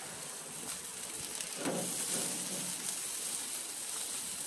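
Goat meat sizzling on a grill grate over hot coals: a steady hiss with fine crackling.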